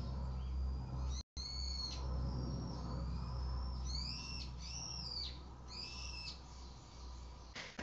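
Helicopter's steady low drone, with birds calling repeatedly in short, high, arching notes, busiest from about four to six seconds in. The audio drops out for a moment about a second in, and the drone fades near the end.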